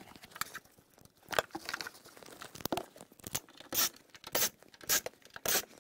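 Flood-damaged floor carpet and plastic interior trim of a Mazda Miata being pulled and handled by hand: a run of irregular rustling, tearing and scraping noises in short bursts.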